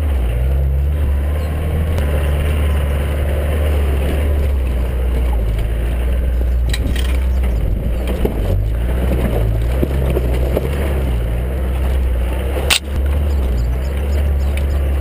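A 4WD's engine running under load as it drives over a sandy track, picked up by a camera mounted on the outside of the body, with tyre and wind noise. The engine note shifts in the middle as the revs change, and a few sharp knocks come from the body jolting over bumps.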